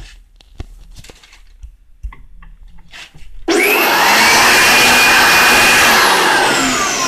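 A few light taps, then an electric air blower switches on about three and a half seconds in. It runs loud with a rushing sound and a steady high whine, then its whine falls in pitch near the end as the motor slows.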